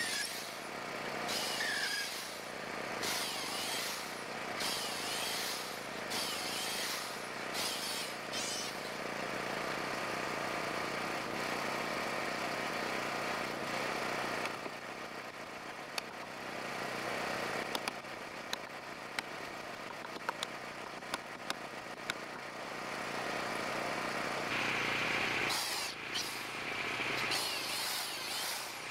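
Corded DeWalt electric drill boring a long bit down into a wooden railroad tie, its motor running under load as the bit chews through the wood. The drilling eases off about halfway, with a few sharp clicks, then runs loud again near the end.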